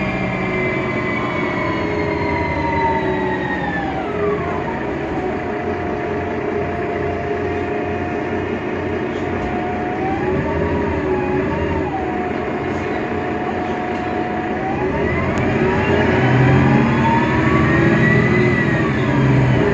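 Mercedes-Benz Citaro O530 Ü bus with OM 906 hLA diesel and Voith Diwa automatic gearbox running, with a whine over the engine. The whine falls as the bus slows about four seconds in, holds steady, then rises as it picks up speed again near the end.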